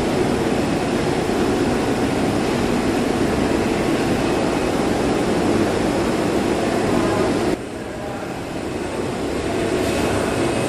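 CNC knife cutting machine running with a loud, steady mechanical noise that drops suddenly about seven and a half seconds in, then slowly builds back up.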